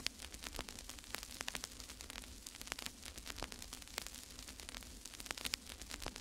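Irregular crackling clicks over a steady low hum.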